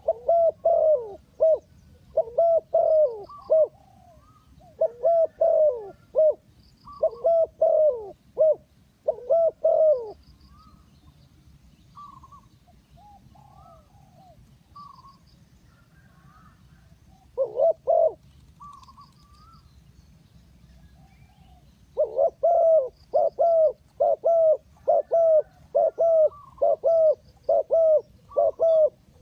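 Spotted doves cooing in repeated short phrases. There is a quieter stretch in the middle with only faint, scattered coos, then a long unbroken run of coos from about two-thirds of the way in.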